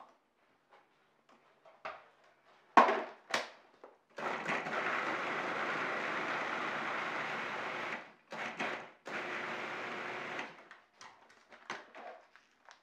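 Cuisinart food processor chopping celery and green vegetables: two sharp knocks as the lid goes on, then the motor runs steadily for about four seconds, gives two short pulses, and runs again for about a second and a half, followed by light clicks as the lid is handled near the end.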